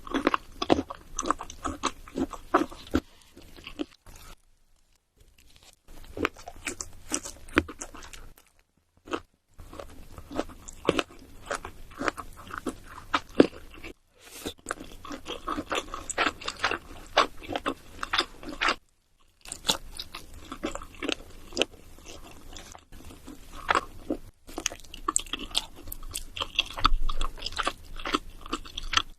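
Close-miked eating sounds: crunchy food being bitten and chewed, with dense crisp crackles. The stretches of chewing are broken by several brief silent gaps.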